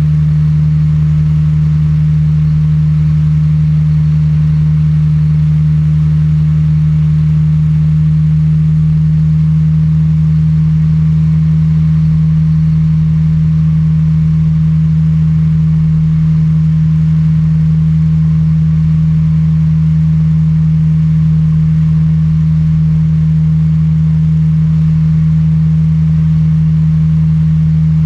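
Engine and pusher propeller of a two-seat weight-shift trike microlight running steadily in flight, holding one unchanging pitch throughout.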